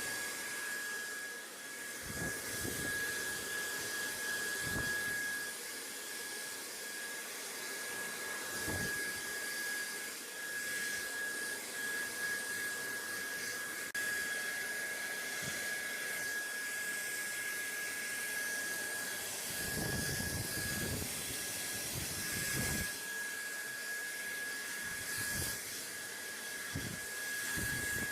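Steady rushing white noise with a thin high whistle held throughout, broken by a few brief low rumbles, most around two thirds of the way in.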